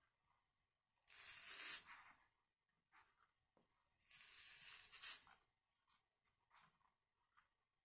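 Faint hissing scrapes of a soldering iron drawn along flux-coated copper tape on a glass paperweight: two strokes of about a second each, one about a second in and one about four seconds in, with a few small ticks between them.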